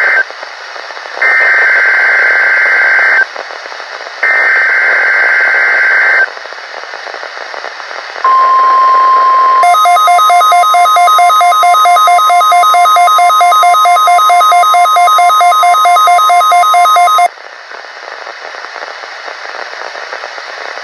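NOAA Weather Radio required weekly test: the tail of one SAME digital header burst, then two more data bursts of about two seconds each with radio hiss between. Then the steady 1050 Hz warning alarm tone sounds, turns harsher and buzzing after about a second and a half, and cuts off sharply after about nine seconds, leaving hiss.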